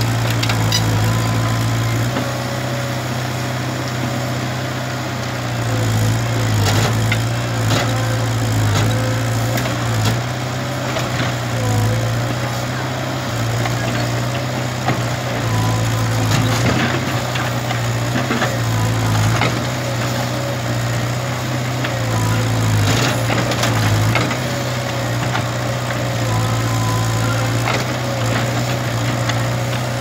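Kobelco SK03 excavator's diesel engine running steadily at close range, its low note swelling and easing a little, with scattered sharp knocks.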